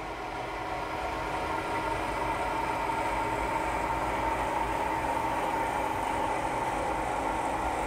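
Locomotive running and moving slowly along the tracks: a steady mechanical drone with several steady tones, growing slightly louder over the first couple of seconds.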